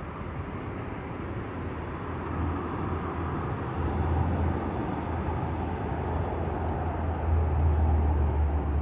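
Steady low rumble of outdoor urban background noise, getting louder about two seconds in and again near the end.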